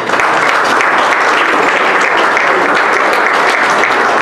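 Audience applauding steadily, the clapping starting abruptly.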